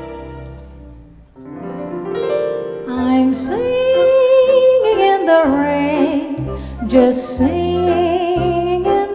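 Orchestra playing the song's introduction; its chords fade and then swell again. About three seconds in, a female singer comes in over the orchestra with a wavering, vibrato-coloured melody.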